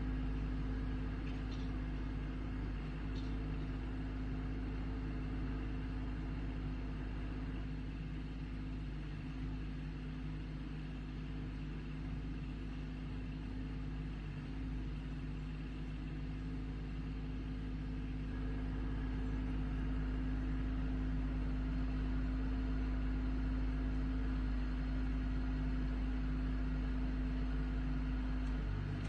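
Backhoe engine running steadily, a constant low hum that grows a little louder about two-thirds of the way through.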